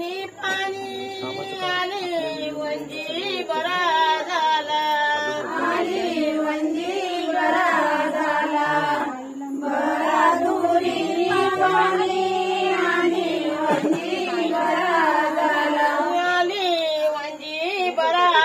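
Women's voices singing a traditional devotional folk song together, with long held, wavering notes.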